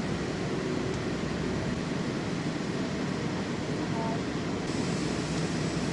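Airport ramp bus driving, a steady engine and road noise heard from inside the cabin. About five seconds in, a higher hiss joins it.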